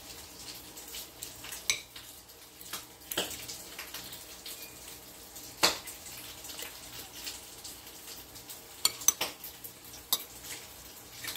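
A metal fork clinking and scraping against a plate during eating, with a few sharp clinks scattered through; the loudest comes about halfway. Faint frying sizzles steadily in the background.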